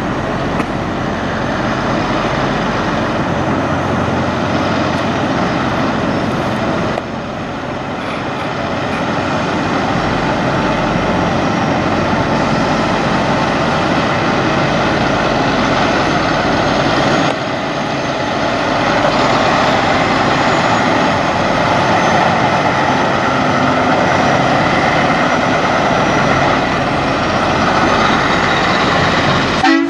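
Semi truck's diesel engine running steadily as the tractor-trailer pulls slowly away. The sound changes level abruptly twice, about a quarter and a little over halfway through.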